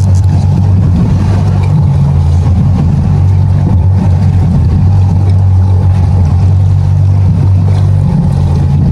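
Outboard motor running steadily at low speed, a constant low drone with a faint steady whine above it, as the boat trolls ahead while a fish is fought.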